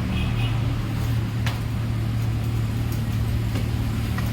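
An engine idling steadily with an even low hum, and a single sharp click about a second and a half in.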